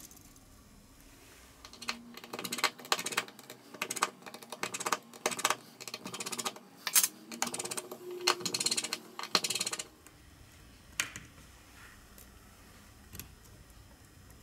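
Small precision screwdriver working tiny screws out of a phone's metal shield plate: a dense run of quick clicks and scrapes of metal tool on metal for about eight seconds, then a few single tool clicks.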